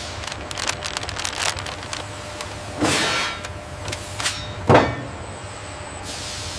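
Car-factory assembly-line noise: a steady machinery hum with light clicking, a few short hissing bursts and a sharp knock about three-quarters of the way through.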